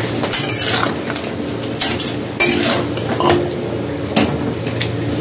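Metal spatula scraping and clinking against a steel wok as pork and potato pieces are stirred and fried, a stroke about every second over a light frying sizzle.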